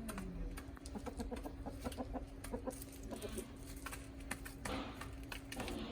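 Backyard chickens clucking while they feed, with many short sharp clicks among the clucks. A steady low hum sits underneath.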